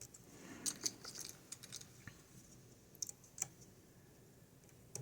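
Lock pick clicking and scraping against the pins inside a pin-tumbler lock cylinder while the pins are set one by one: a quick run of small clicks in the first two seconds, then a few single clicks.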